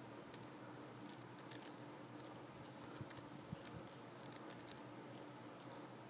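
Very faint room tone with a low steady hum and scattered tiny high clicks, two of them a little louder about halfway through.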